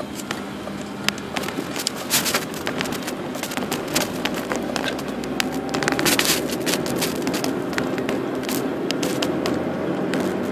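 A car driving, heard from inside the cabin: steady engine and tyre noise, growing a little louder about six seconds in, with frequent sharp clicks and rattles on top.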